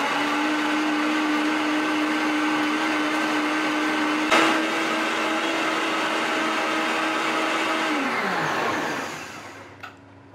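Countertop blender running at a steady high speed, blending soaked dates and water into a thick, smooth sauce. A single sharp click comes about four seconds in. The motor spins down and stops about eight seconds in.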